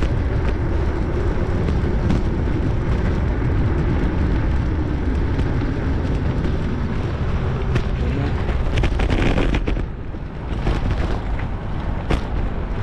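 Wind buffeting a bicycle-mounted camera's microphone while riding, a steady low rumble that eases briefly about ten seconds in, with a few light clicks near the end.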